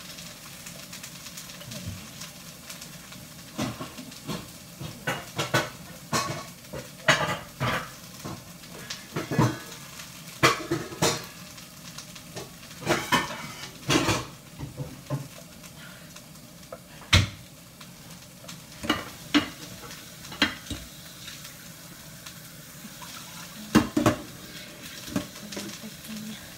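Pots, pan lids and metal utensils clattering and knocking at irregular moments, busiest through the middle with a few single knocks later, over a steady sizzle of vegetables cooking in a pan.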